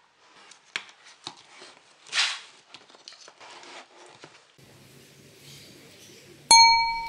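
Light clicks and rustling as wires and a perfboard circuit board are handled by hand. About four and a half seconds in a faint steady hum begins, and about six and a half seconds in comes a single loud bell-like ding that rings and fades.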